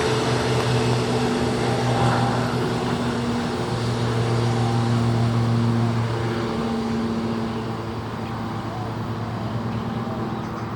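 Airbus A321neo airliner taxiing with its Pratt & Whitney geared turbofan engines running at idle: a steady engine hum and rushing noise with a few steady tones, slowly getting quieter.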